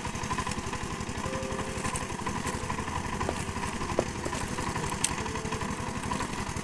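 Irrigation water pump's engine running steadily with a fast, even beat. A couple of faint knocks are heard in the middle, as a hoe works the wet soil.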